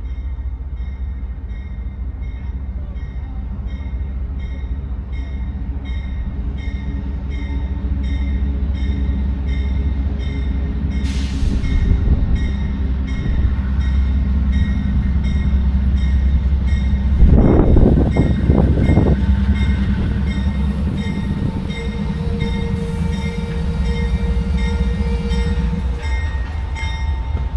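Amtrak Silver Meteor passenger train at the station, its diesel locomotive running with a steady low rumble under an evenly repeating high ringing. A sharp hiss comes about eleven seconds in, and a loud burst of noise around two-thirds of the way through.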